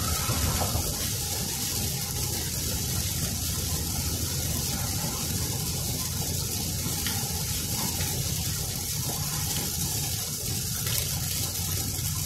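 Steady hiss of heavy rain and tyres on a soaked highway, heard from inside a moving car's cabin over a low road rumble.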